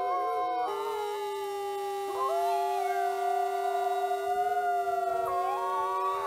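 Mexican gray wolves howling together in chorus: several long, held notes at different pitches overlap, each shifting to a new pitch now and then.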